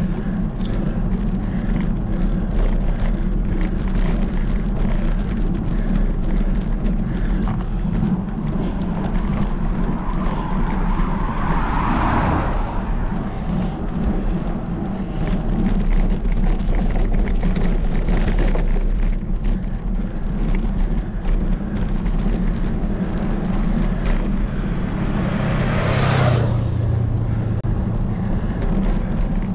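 Steady low rumble of wind and road noise while riding a bicycle up a road climb, with two motor vehicles passing, about twelve seconds in and again near the end.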